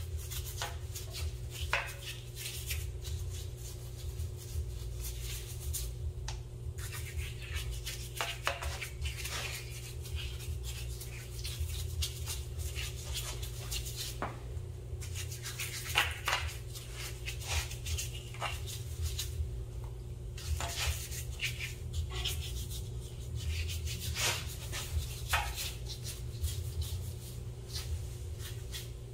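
A brush scrubbing mineral spirits over a bare cast-iron engine block in short, irregular scratchy strokes, cleaning off machine-shop oil before paint. A steady low hum runs underneath.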